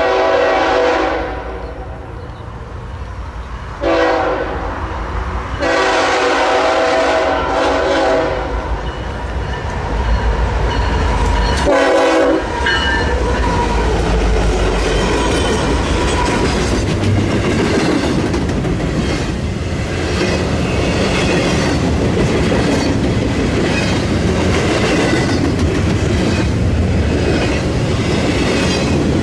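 Diesel freight locomotive horn sounding four blasts as the train approaches, the first and third long and the others short. The lead BNSF GE ES44C4 and two more diesel locomotives then run past with a heavy engine rumble, followed by double-stack intermodal cars with a steady rhythmic clatter of wheels on the rails.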